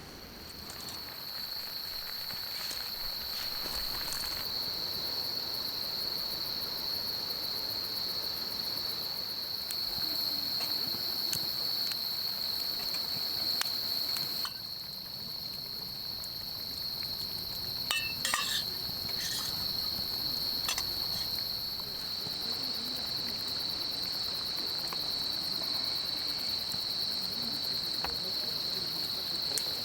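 Steady insect chorus of crickets chirping in one continuous high trill, over a faint crackling hiss, with a few light clinks about eighteen seconds in.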